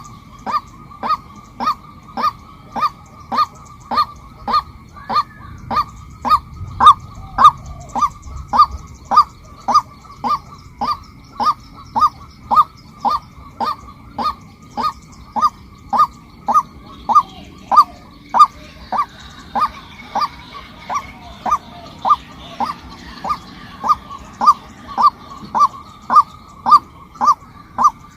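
Female white-breasted waterhen calling: one short note at a time, repeated at an even pace of about one and a half a second.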